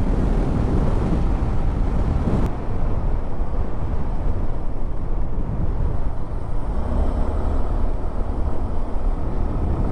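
Steady engine and road noise from a moving vehicle, with a low rumble throughout. The hiss turns suddenly duller about two and a half seconds in.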